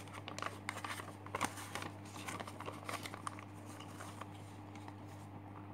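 Sheets of notebook paper being handled and turned, a run of crisp rustles and small crackles that thins out after about four seconds, over a steady low hum.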